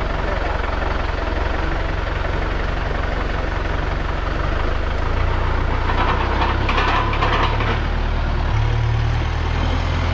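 Farm tractor's diesel engine running with a knocking clatter, its engine speed stepping up about halfway through and again near the end. A short burst of higher-pitched clatter comes about six seconds in.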